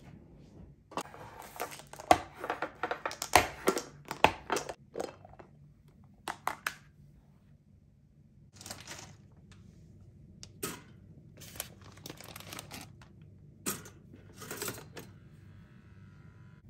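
Kitchen handling sounds: a quick run of clicks and knocks as the clip-lock lid of a glass food container is unsnapped and lifted off, with plastic crinkling, then scattered taps and knocks of the container and lid set down on a stone counter.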